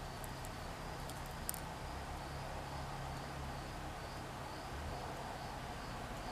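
Crickets chirping in a soft, even pulse about twice a second over a steady low hum. A sharp click comes about one and a half seconds in.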